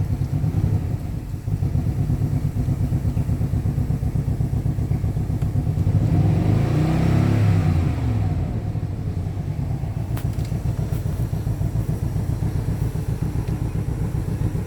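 Range Rover L322's 4.4-litre V8 engine idling, with one throttle blip about halfway through that rises and falls in pitch over about three seconds before it settles back to idle.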